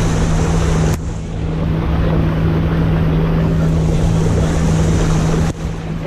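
The tour boat's outboard motor runs steadily at speed, a constant hum under loud rushing wind and water noise. The rushing noise briefly drops twice, about a second in and near the end.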